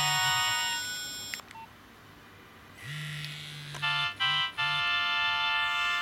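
Nokia 2310 mobile phone's loudspeaker playing ringtone previews. One melody fades out in the first second and a half and ends with a click, then after a short pause another ringtone starts about three seconds in, with a few quick stabbed notes and a low buzz under parts of it.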